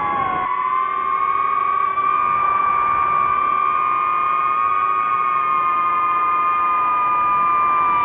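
Drone's electric motors and propellers whining steadily, several close tones at slightly different pitches, shifting a little in pitch as the throttle changes.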